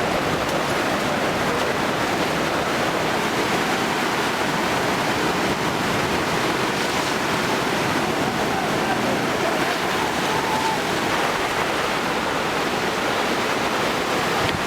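Steady rushing of water, a dense even noise that does not let up.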